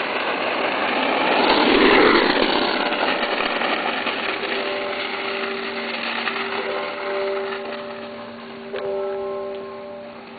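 Ripstik caster board wheels rolling fast down a paved hill, with wind rushing over the microphone; the rush is loudest about two seconds in. From about four seconds in, several steady tones sound along with it.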